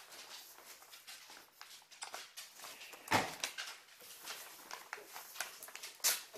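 Paper and card rustling and crinkling as a gift and card are handled on a wooden table, with one louder knock about three seconds in.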